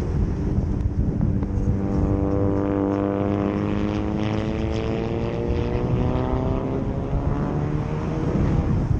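A small propeller aircraft passing overhead: its engine drone grows in about a second and a half in, then slowly falls in pitch and fades out near the end. Wind rushing on the microphone throughout.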